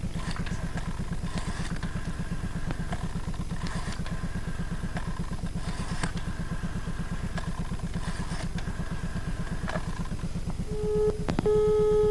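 Telephone line audio fed into the studio sound while a rotary phone is dialed: a steady, fast-pulsing low buzz of line hum. Near the end the ringing tone of the called number comes through, a short beep and then a longer steady tone.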